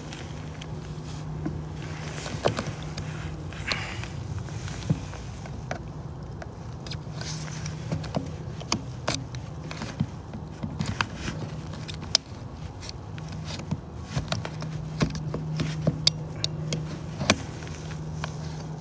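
Scraper and knife blade cutting and prying old sealant from around an RV roof skylight: irregular sharp scrapes and clicks. A steady low hum runs underneath, fading out for a while midway and returning.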